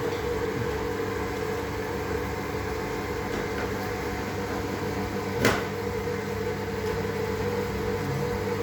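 Steady hum of a small running motor, with one sharp click about five and a half seconds in.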